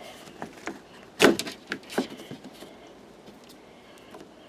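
A few knocks and clicks as a part is worked into place in a car's sliding door, the loudest knock about a second in.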